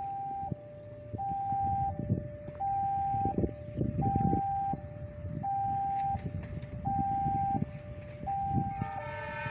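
Automatic railway level-crossing siren sounding its two-tone warning, alternating high and low about once a second, which signals an approaching train. A low rumble rises and falls underneath, and near the end a second, richer horn-like tone joins in.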